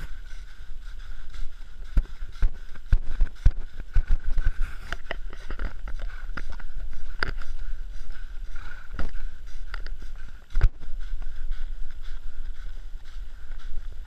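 Horses walking on a soft dirt forest trail: irregular hoof thuds and knocks over a steady rushing noise, with one louder knock about three-quarters of the way through.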